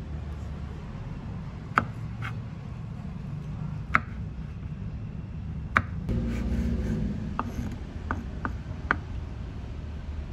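Kitchen knife chopping garlic cloves on a wooden cutting board: sharp knocks of the blade on the board, a few spaced about two seconds apart, then a quicker run of four or five in the second half, over a steady low hum.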